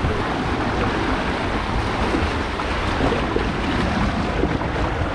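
Steady rush of water pouring into the start pool at the top of a water slide.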